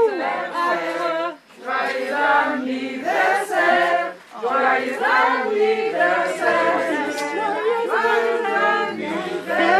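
A group of people singing together without instruments, many voices at once.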